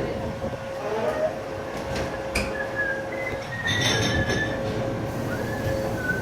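Commercial kitchen dish pit noise: a steady machine hum under a clattering haze, with a sharp clack about two and a half seconds in and short high squeaks over the next couple of seconds.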